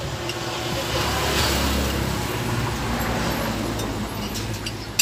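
A road vehicle passing close by: engine and tyre noise swell to a peak about a second and a half in, then fade away. A sharp click near the end.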